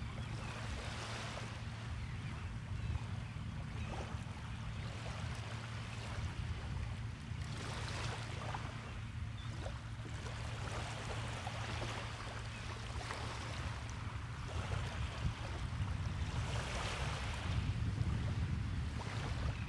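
Waves breaking and washing onto a beach, swelling every few seconds, over a steady low rumble.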